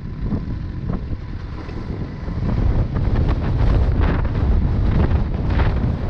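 Wind buffeting the microphone of a camera on a 250 cc trail motorcycle riding on loose gravel, over the bike's engine and tyre noise, with scattered crackles from the gravel. It grows louder about two and a half seconds in.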